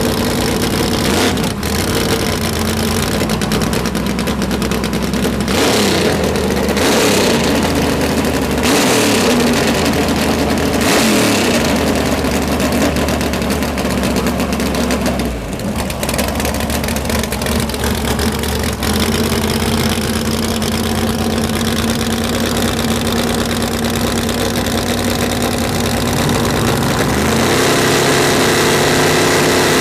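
Drag-racing car engines idling and revving, the pitch climbing and falling several times in the first half, then running steadier.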